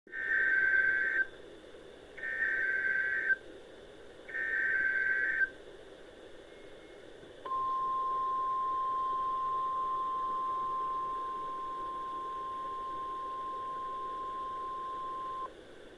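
Emergency Alert System broadcast in the NOAA Weather Radio style: three SAME header data bursts, each a harsh warbling screech about a second long, then the steady 1050 Hz weather radio warning alarm tone held for about eight seconds, all over a steady hiss of radio static.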